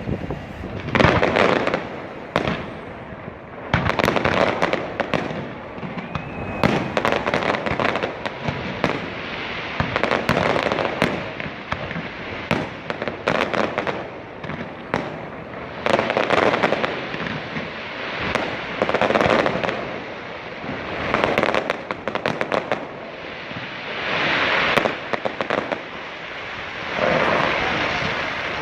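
Aerial fireworks bursting in quick succession, sharp bangs mixed with crackling, the loudest swells coming every two to three seconds.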